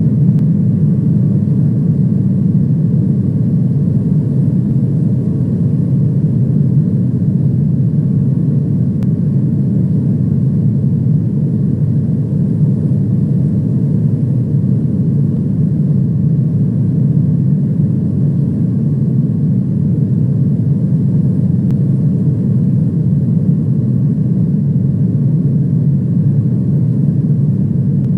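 Airliner cabin noise: the steady, loud low drone of the jet engines and airflow heard from inside the passenger cabin in flight.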